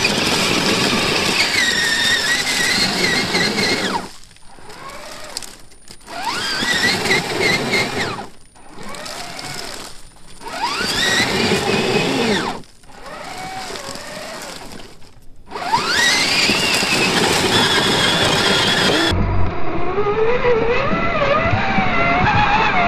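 Scale RC crawler's electric motor and geared drivetrain whining under load as it tows a stuck truck. It throttles up in four bursts, the whine rising in pitch each time, with short quieter pauses between. In the last few seconds the pitch wavers up and down.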